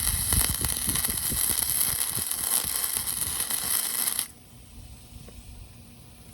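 Arc welding: a loud, steady hiss with many small crackles from the welding arc, cutting off suddenly about four seconds in when the arc is broken.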